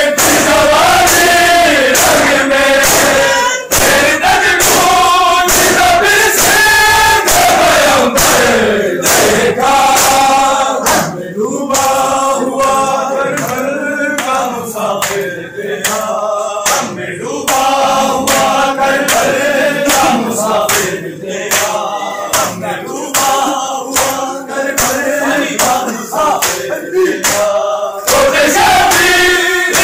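A crowd of men chanting a Punjabi noha (Shia mourning lament) together, with sharp chest-beating (matam) strikes in a steady rhythm.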